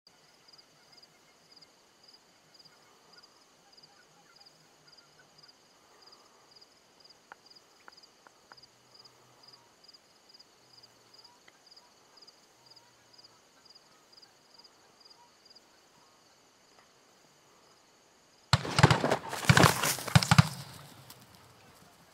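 A volley of shotgun fire at Canada geese: a rapid string of sharp blasts from several guns, overlapping over about two seconds, starting near the end. Before it, a faint even chirping pulses about two and a half times a second.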